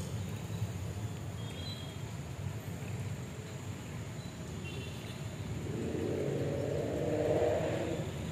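Steady low rumble of a passenger train drawing away, its rear pushed by banking electric locomotives, with a few short bird chirps. A louder rushing swell comes and goes in the last few seconds.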